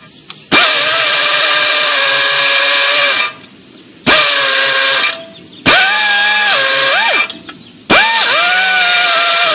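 High-speed rotary tool with a round bit grinding out a bolt hole in a metal skid plate, run in four bursts with short pauses between. The whine sags in pitch when the bit bites into the metal and climbs again as it frees up.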